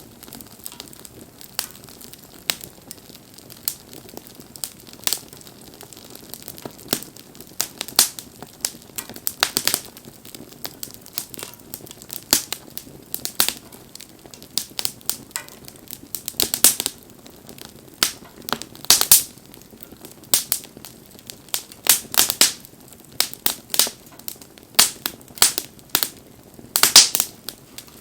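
Wood bonfire crackling: irregular sharp pops and snaps, several a second, over a low hiss, with the loudest cluster of pops near the end.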